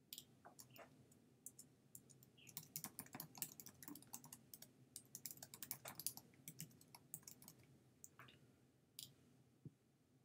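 Faint typing on a computer keyboard: a few keystrokes at first, a quick run through the middle, then a few scattered clicks near the end.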